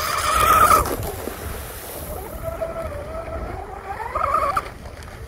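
Electric RC outrigger boat (Oxidean Oxi-digger, 34-inch wooden rigger) running flat out across a pond: a high motor whine that peaks and cuts off about a second in as the throttle comes off, runs lower and steadier, then rises again briefly near the end, over the hiss of spray.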